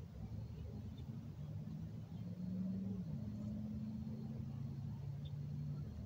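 A distant engine droning steadily over a low rumble. Its pitch shifts once, about three seconds in.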